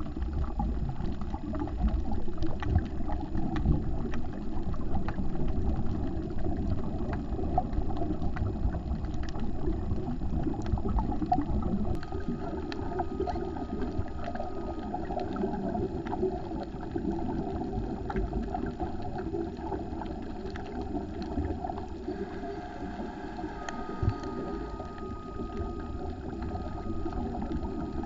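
Underwater sound picked up through a GoPro's waterproof housing on a coral reef: a muffled low rumble with scattered faint clicks and crackles. A faint steady high whine comes in twice, about halfway through and again near the end.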